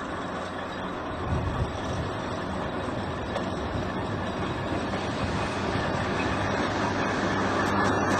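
Fowler steam traction engine, built up as a high-speed road engine, running along the road and coming closer, growing steadily louder, with a couple of sharp knocks about a second and a half in.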